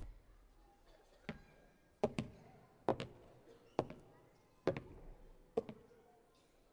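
A slow series of sharp knocks, roughly one a second, with two in quick succession about two seconds in.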